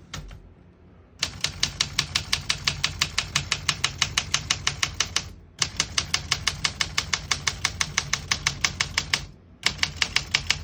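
1964 Olympia SM9 manual portable typewriter being typed on: a fast, even run of key strikes, with two short breaks.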